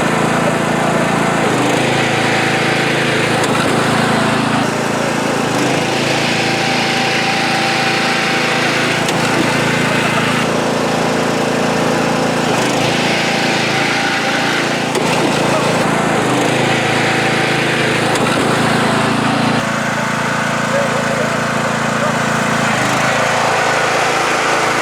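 Riding lawn mower's small engine running steadily, its pitch shifting abruptly a few times.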